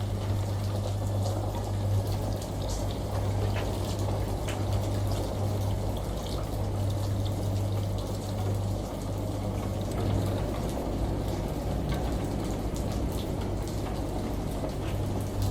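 Washing machine running with a steady low hum, mixed with the wash of running water and scattered small drips.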